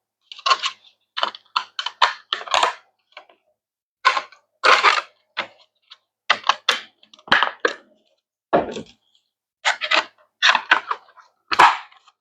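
Hard plastic tower parts clicking and clacking as they are handled and snapped together: irregular clusters of short, sharp clicks.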